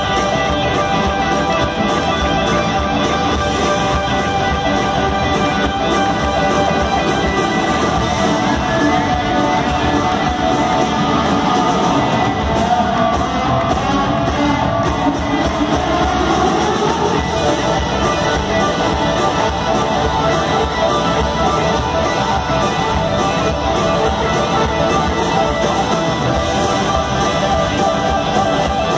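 Rock band playing live: several electric guitars jamming together over bass and drums, with lead lines bending in pitch around the middle.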